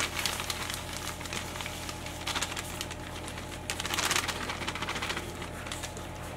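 Plastic bag of powdered sugar crinkling and rustling as it is squeezed and shaken out into a mixing bowl, in irregular short crackly bursts.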